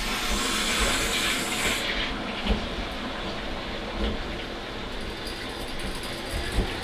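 Water rushing through a just-opened supply valve and copper piping into a drained residential water heater tank as it refills. A louder, brighter hiss for about the first two seconds settles into a steadier rush.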